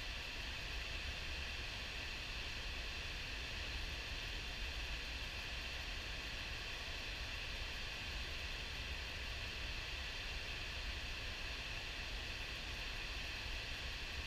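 River water at high flow pouring over a dam spillway and churning in the whitewater below: a steady, even rush with a deep rumble underneath.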